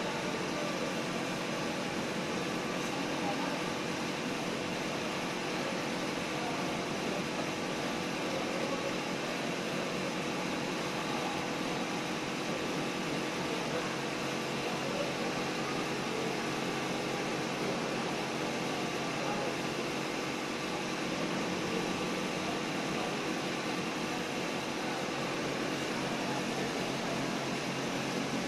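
Steady background hum and hiss, even throughout, with faint voices.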